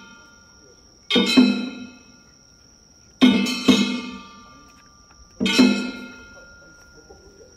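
Festival hayashi percussion from a Nagasaki Kunchi float: drum and metal gong struck together in three quick double strokes about two seconds apart, each ringing out. A steady high tone sounds between the strokes.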